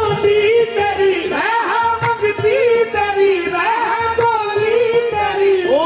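Qawwali music: a sung melody with long, ornamented held notes and sliding pitch over a beat, played loud throughout.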